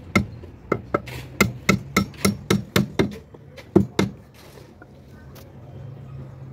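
Steel hammer nailing a wooden beam onto plank formwork: a run of about a dozen sharp blows, three to four a second, with a short pause before the last two, stopping about four seconds in.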